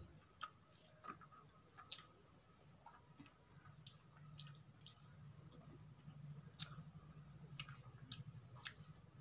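Faint, scattered wet clicks and squishes of fingers mixing rice and egg curry on a steel plate, with chewing, over a low steady hum.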